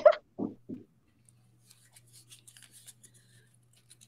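Faint scratchy rustling and light clicks from hands handling the painting setup, a string of short ticks from about two seconds in, over a low steady hum.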